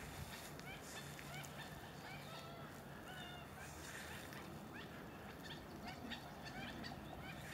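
Birds calling: many short, quick rising chirps repeating throughout, over a faint low steady hum.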